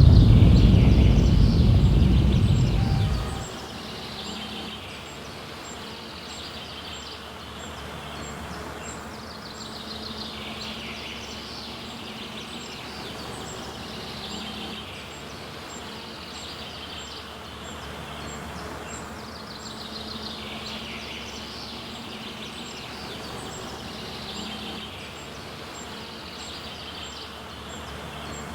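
The low rumble of a crash sound effect dies away over the first three seconds or so, leaving an outdoor ambience of birdsong. Its phrases come back every few seconds over faint, regularly spaced high ticks.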